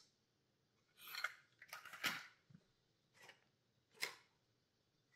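Fishing-lure packaging being handled: a handful of short, separate rustles and clicks spread over the first four seconds.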